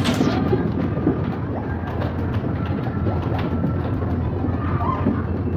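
Steady rumble of a ball-blowing arcade game's air blower, with plastic balls flying and knocking inside the enclosure, over the general din of an arcade.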